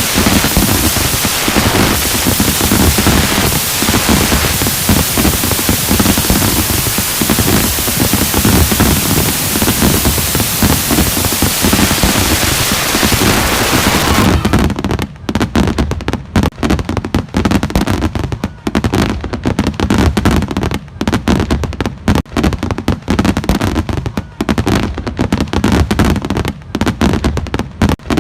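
Fireworks display: a dense, steady hiss fills the first half, then from about halfway rapid, irregular bangs and crackles follow one another closely.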